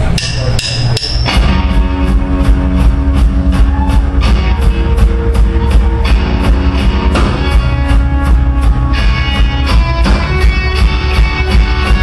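Live rock band playing loud through a club PA: drum kit, electric guitar and bass with a steady driving beat. The full band comes in about a second in, after a brief thinner patch.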